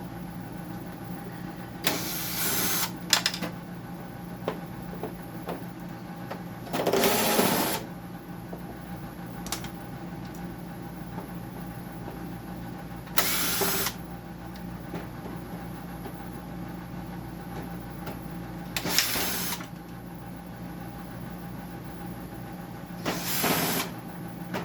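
Power screwdriver backing screws out of a dehumidifier's plastic case, five short runs of the motor about five seconds apart.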